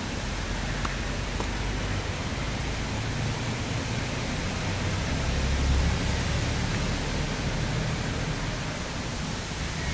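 Steady rushing wind noise on the microphone, with a low rumble that swells about halfway through. Faint pops of a tennis racket striking the ball come about a second in.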